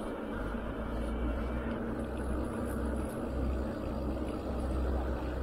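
Wind buffeting the microphone, a low rumble that swells and drops, over a steady rushing noise of movement outdoors.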